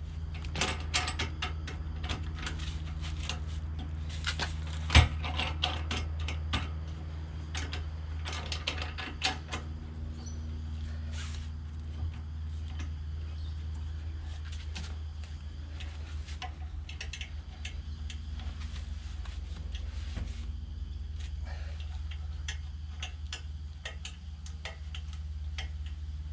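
Metal clicks and knocks of a tow-ball-mount bike rack being handled and fitted, with one louder knock about five seconds in, over a steady low hum.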